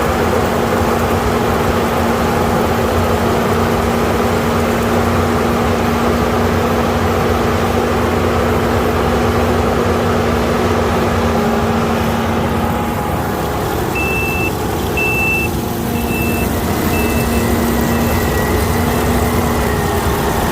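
Kukje KC 5130 combine harvester running steadily as it harvests rice. About two-thirds of the way through, a run of short high beeps sounds about once a second and fades out.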